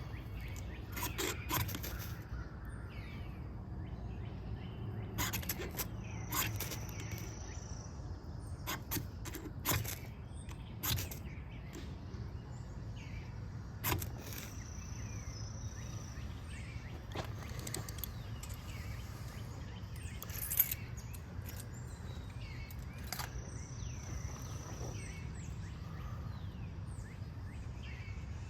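Outdoor ambience: a steady low hum with scattered sharp clicks and snaps, and a thin, high, steady call that comes four times, each lasting a second or two.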